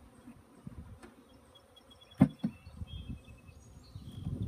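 Honeybees buzzing around a wooden swarm box that is being tipped and turned over, with a sharp wooden knock about two seconds in and a smaller one just after.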